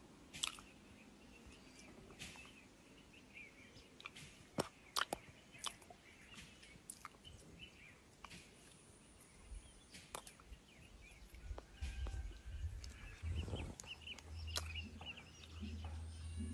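Faint outdoor background with scattered short chirps and sharp clicks; a low rumble comes in about twelve seconds in.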